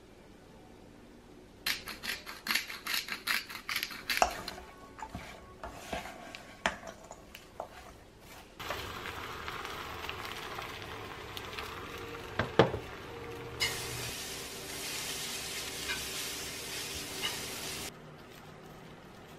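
A utensil stirring fast against a bowl, quick clicks for a few seconds, then some scattered knocks. Food then sizzles in a frying pan as a steady hiss, which gets louder about halfway through and cuts off suddenly near the end.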